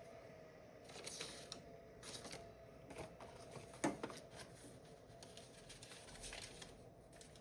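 Faint rummaging and handling noises while searching for a sheet of paper: scattered rustles and light clicks, with one sharper knock about four seconds in.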